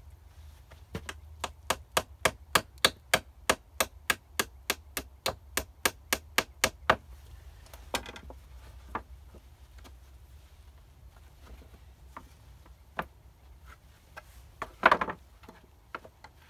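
Hammer striking pallet wood: a fast, even run of about twenty blows, three or four a second, lasting about six seconds. Then a few scattered knocks, the loudest a short burst near the end.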